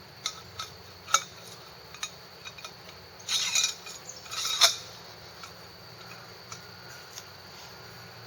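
Metal saw blade and buck-saw frame parts clinking and scraping as the blade, with a small bolt and nut at each end, is worked into the take-down saw's frame. A few sharp clicks, with two louder scraping clatters about three and a half and four and a half seconds in.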